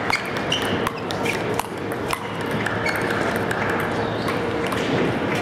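Table tennis ball being hit back and forth with sandpaper paddles and bouncing on the table: a string of sharp, irregularly spaced clicks over a steady background din.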